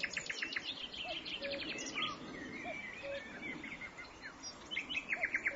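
Several birds chirping and trilling at once, with rapid runs of short notes. Under them, a low two-note call repeats about once a second.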